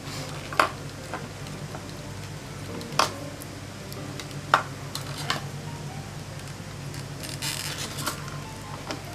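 Small metal parts being handled: a nut fitted onto a post of the flip clock's motor cover, giving a few sharp clicks and taps and a short rattle near the end.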